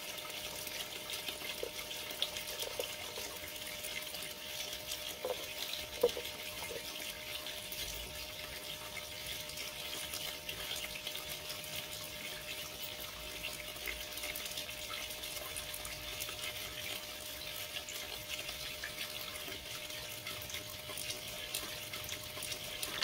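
Steady hiss of running water with a faint steady hum under it, as a plastic snuffer bottle sucks fine gold out of the water in a gold pan; a few faint slurps and clicks come from the bottle about five and six seconds in.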